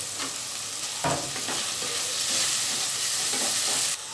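Onion and tomato masala frying in oil in a pressure cooker, a steady sizzle with a few knocks and scrapes of the stirring spoon against the pot early on. The sizzle grows louder about a second in and drops off sharply near the end.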